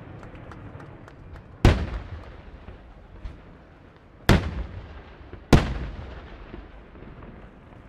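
Daytime fireworks going off: three loud bangs, about two seconds in, four seconds in and a second later, each trailing off in echo, with faint scattered crackling pops between them.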